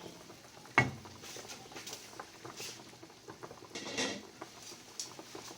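A cooking pot of boiling cauliflower being uncovered and checked: a sharp metal clank about a second in, then scattered light clicks and taps, with a brief scrape near four seconds.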